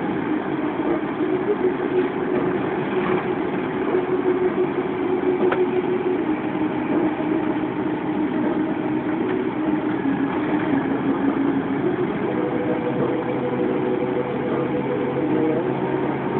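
Car engine running with road noise, heard from inside the moving car; the engine note holds steady and shifts in pitch a few times.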